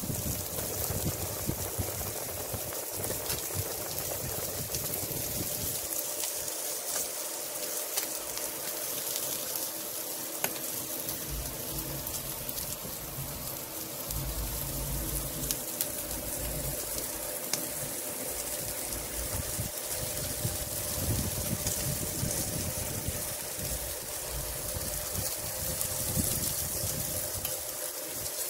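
Salmon steaks sizzling on a charcoal grill over open flames, a steady hiss with scattered crackles from the burning coals.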